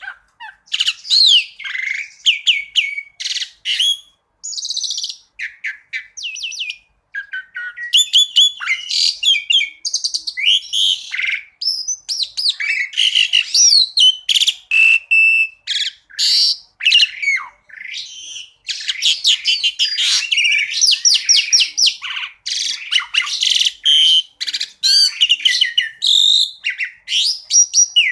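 Asian pied starling (jalak suren) singing a varied song: quick chattering trills, rapid runs of notes, rising and falling whistles and short held whistles, almost without a break, thinning out briefly a few seconds in.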